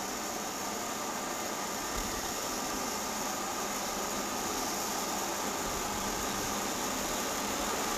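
Steady, featureless hiss with no distinct events or rhythm, typical of an old film's blank soundtrack.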